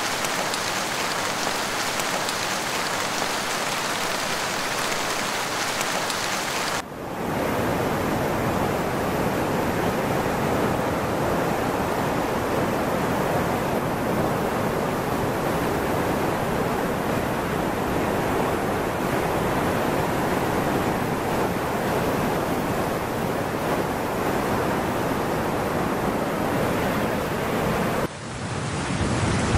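Heavy rain and churning floodwater, a steady hiss with no distinct events, breaking off suddenly about seven seconds in and again near the end.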